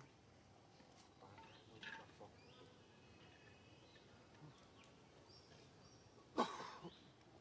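Quiet woodland with scattered faint bird chirps. About six seconds in comes one short, harsh vocal sound, like a cough.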